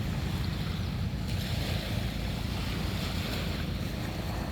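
Wind buffeting the microphone over the wash of surf on the shore, a steady low rush with no distinct events.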